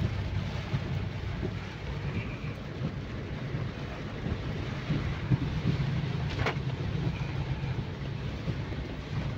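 Steady low engine and road rumble heard inside a car cabin while driving through rain, with a hiss of rain and tyres on the wet road. A single short click sounds about six and a half seconds in.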